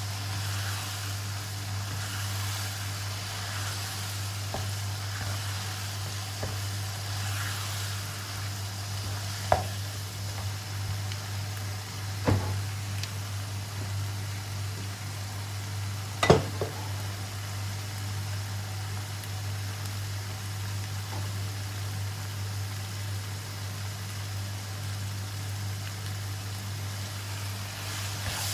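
Sambal chili paste sizzling as it fries in a wok and is stirred with a wooden spatula, over a steady low hum. The spatula knocks sharply against the pan three times around the middle, the third knock the loudest.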